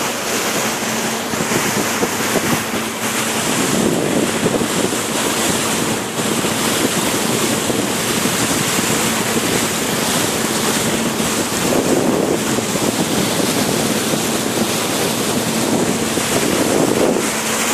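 Wind buffeting the microphone and water rushing past a moving boat, with a steady engine hum underneath; the rushing swells up a few times.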